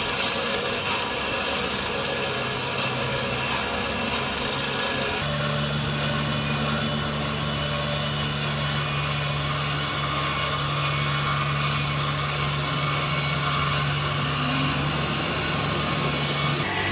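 Steady hum and whine of a machine-shop machine running, its tone changing abruptly about five seconds in.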